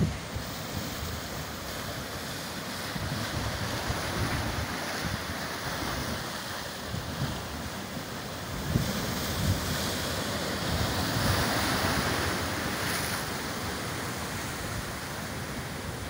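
Ocean surf breaking and churning among rocks, swelling louder a few seconds in and again later, with wind buffeting the microphone in low rumbles.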